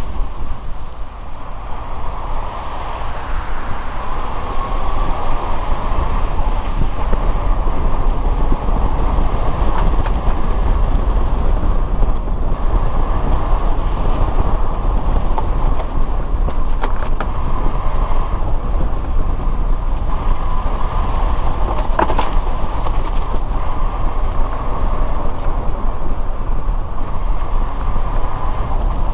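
New-model Suzuki Jimny driving along: a steady rumble of engine and tyres on the road, with a few short sharp clicks in the second half.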